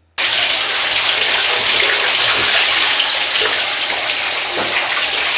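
Steady rush of running water in a bathroom, cutting in suddenly just after the start and running on evenly.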